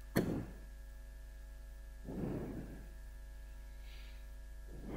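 Steady electrical mains hum with a buzz of many even overtones. Over it come a short, loud burst of noise just after the start and a softer, longer rustle of noise about two seconds in.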